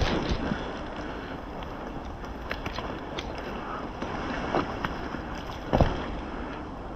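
Wind buffeting the microphone over rustling, with scattered sharp clicks and a louder knock about six seconds in.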